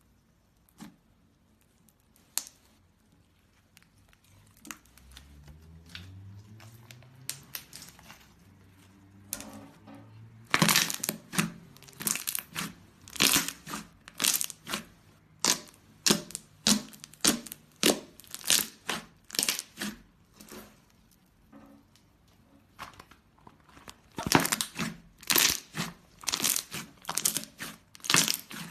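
Slime being squeezed and worked by hand, giving runs of crinkly, crackling pops about two or three a second. It starts faint and picks up strongly about ten seconds in, pauses briefly, then comes back loud near the end.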